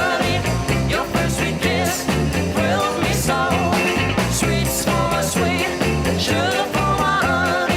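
Rock music with a steady, repeating bass line under a wavering melody line.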